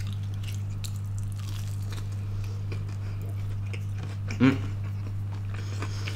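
A person chewing a piece of breaded fried chicken close to the microphone, with many small mouth clicks, over a steady low electrical hum. About four and a half seconds in comes a short vocal sound.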